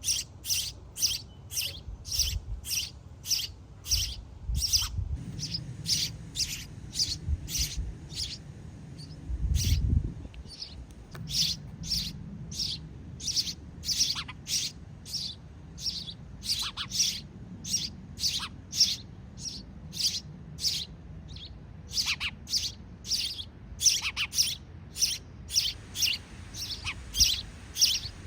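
Sparrows chirping in a rapid, steady series of short, high chirps, about two or three a second, with a brief pause and a low rumble about ten seconds in.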